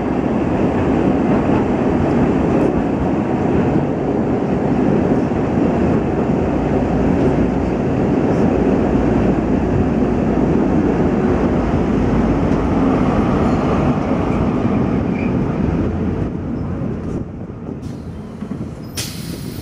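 Tram running on street track, heard from the driver's cab: a loud, steady rumble of wheels on the rails and running gear. It dies away over the last few seconds as the tram slows to a stop, and there is one sharp click just before the end.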